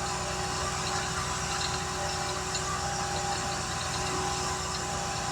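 An engine idling steadily, a constant low rumble with a faint steady hum over it.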